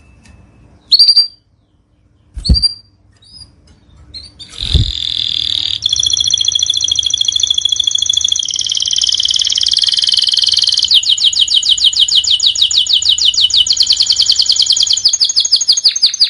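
Domestic canary singing: a few short chirps, then from about four and a half seconds a long, loud song of rolling trills that turns into a very fast trill about eleven seconds in. Two low thuds come in the first five seconds.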